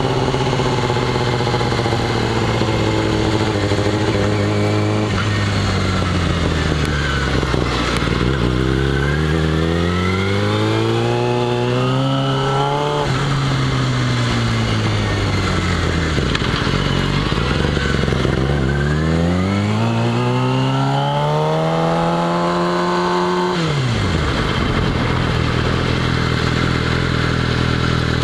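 2009 Yamaha R6S's 600 cc inline-four engine running under way, heard from the rider's seat. The revs hold steady, then fall and climb twice; each climb ends in a sharp drop as the throttle is closed, the second one steep, before the revs settle steady again.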